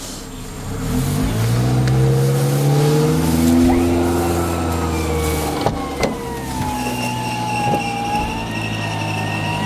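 Suzuki off-roader's engine revving as it is winched forward through mud. A thin whine from the front winch joins about three seconds in and slides down in pitch, with a second higher whine from about seven seconds.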